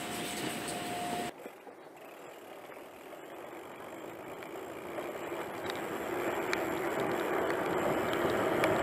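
A steady tone stops abruptly about a second in. Then a Radon ZR Race 6.0 hardtail mountain bike rolls down a wet road in the rain: tyre hiss on the wet asphalt and wind on the action-camera mic grow steadily louder as the bike picks up speed, with a few light clicks.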